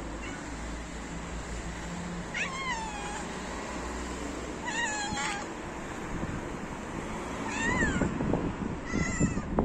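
A cat meowing four times, short calls spaced a couple of seconds apart, each falling in pitch. Rustling noise starts near the end.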